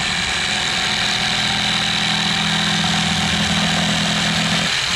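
A Mailtank SH29 550 W single-speed jigsaw running steadily at full speed with no load, its motor whine and blade mechanism buzzing at an even pitch.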